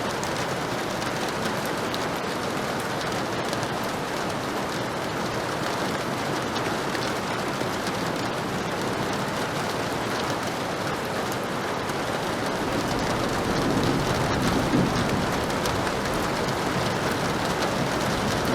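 Heavy rain falling steadily, with a low rumble of thunder swelling about two-thirds of the way through and fading again.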